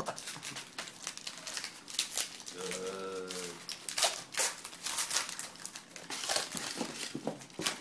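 A basketball trading-card pack's wrapper crinkling and tearing as it is opened by hand, with many sharp crackles throughout.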